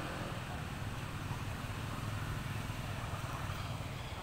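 Steady low rumble under a faint even hiss, with no distinct events.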